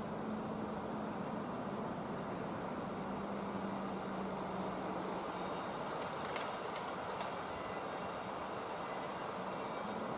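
Tobu 8000-series electric train giving a steady hum, with a low drone that holds throughout and a few faint clicks about six to seven seconds in.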